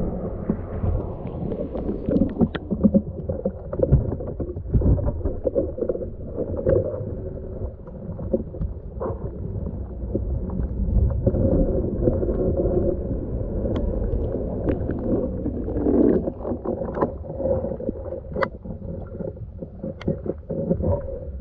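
Muffled surge and sloshing of seawater around a camera in a waterproof housing held underwater, an uneven low rumble that swells and eases. Scattered small clicks run through it, with a few sharper ones in the second half.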